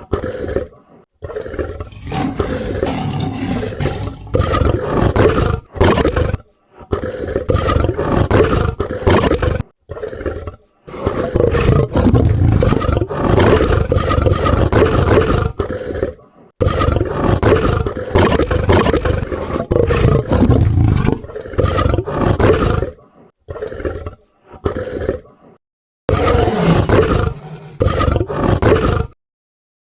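A string of dragon roar sound effects, about a dozen in all, some under a second and some several seconds long, with brief silences between them.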